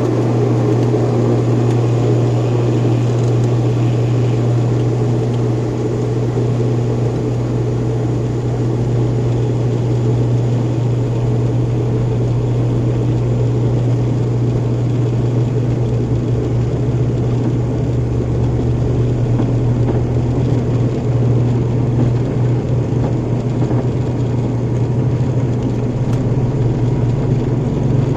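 Airliner's jet engines at takeoff thrust: a loud, steady roar with a deep low rumble that holds throughout.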